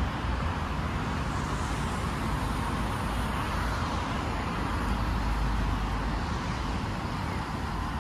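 Steady road traffic noise, with a deeper rumble swelling about five seconds in.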